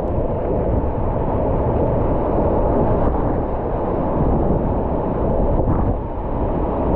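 Whitewater rapids rushing around a kayak: a steady, loud, muffled churning of river water.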